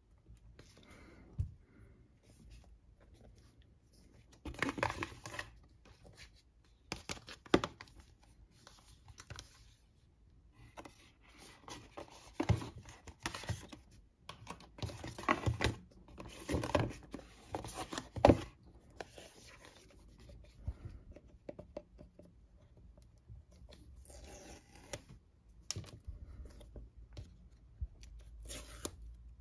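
Paperboard Apple Watch Series 7 packaging being handled and opened: irregular sliding, scraping and rustling of cardboard in short clusters, with a few sharp taps and clicks.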